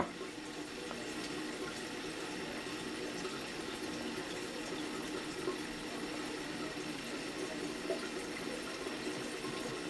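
Toilet refilling after a flush: water running steadily into the tank and bowl.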